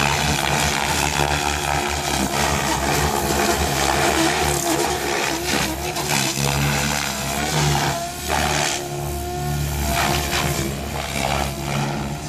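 Goblin 630 electric RC helicopter in flight, its Scorpion brushless motor and main rotor whining and whirring steadily, the pitch rising and falling as it manoeuvres, with a brief dip about eight seconds in.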